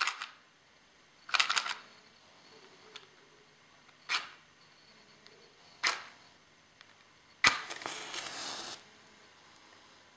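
A wooden match struck against its box again and again in the dark: four short scrapes that fail to light it, then a fifth strike catches with a sharp crack and hisses for about a second as the flame flares up.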